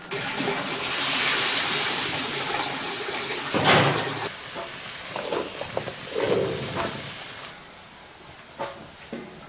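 Steam hissing from a large wok as its metal lid is lifted off, with a knock of the lid about three and a half seconds in. The hiss cuts off suddenly near the end, as the lid goes back on.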